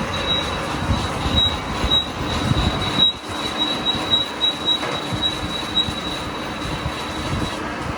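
Steady high-pitched metallic squeal that pulses about twice a second over workshop clatter, then stops near the end; the sound of metal rubbing on metal.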